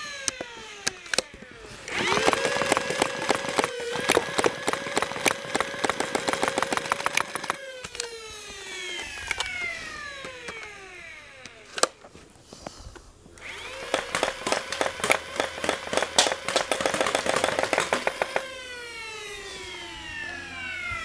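Custom full-auto Nerf flywheel blaster (a modded ABR-2 with a solenoid pusher) firing two long bursts. Each time the flywheel motors spin up with a rising whine and the solenoid clatters rapidly, pushing half darts through. The motors then whine down, falling in pitch, when the trigger is released.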